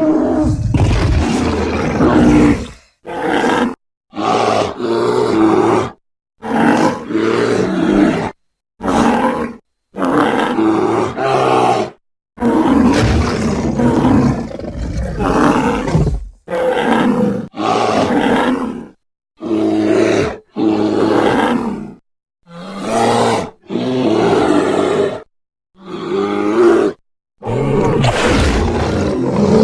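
A rapid series of bear-like roars and growls, a creature sound effect for the extinct giant short-faced bear Arctotherium bonariense mixed from grizzly and cave-bear sounds. Each roar lasts one to three seconds, with brief silences between.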